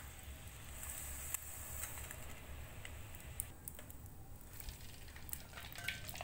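Hot cooking oil sizzling and crackling in a wok as a kerupuk mie noodle cracker fries, with scattered small pops. The sizzle thins briefly a little past halfway.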